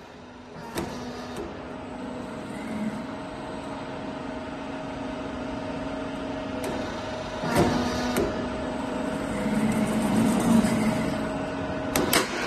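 C purlin steel roll forming machine running with a steady hum that slowly grows louder, broken by sharp knocks: once or twice near the start, a pair in the middle and a quick cluster near the end.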